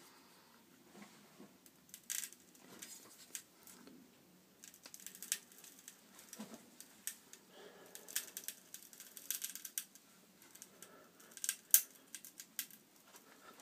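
Scattered light clicks, taps and small knocks of a plastic cordless screwdriver being handled and set in the jaws of a steel bench vise, the sharpest click a little before the end.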